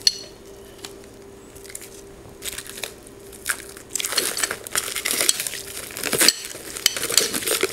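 Clear plastic wrapping crinkling and crackling as plastic-wrapped metal slide rails are handled, starting about two and a half seconds in, with many sharp little crackles.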